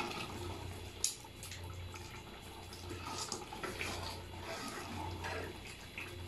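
A spoon stirring thick, wet potato curry in an aluminium pot, giving wet stirring and scraping noises and a sharp clink about a second in, over a steady low hum.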